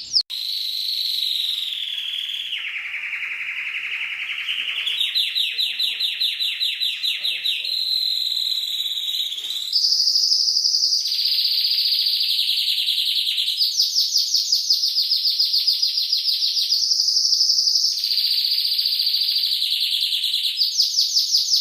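Domestic canary singing a long, unbroken song of rapid trills and rolls. It switches to a new repeated phrase, higher or lower, every two to three seconds.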